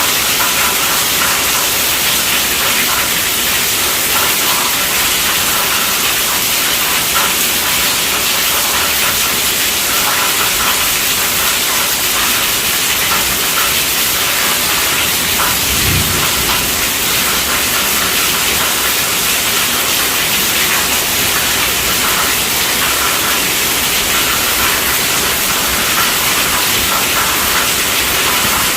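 Heavy rain falling on a tent roof, a steady dense patter and hiss. About halfway through there is one brief low thump.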